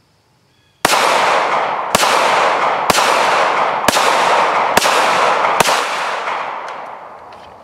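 Ruger LCP II .380 pocket pistol fired six times, about one shot a second, after a brief quiet. The ringing of the shots runs between them and fades away over a couple of seconds after the last one.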